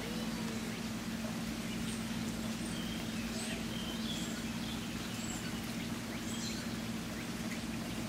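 Flowing water, a steady rushing noise, with a few faint, short bird chirps and whistles through the middle, over a steady low hum.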